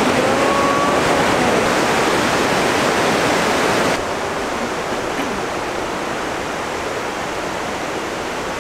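Steady rush of a waterfall, dropping to a lower level about halfway through.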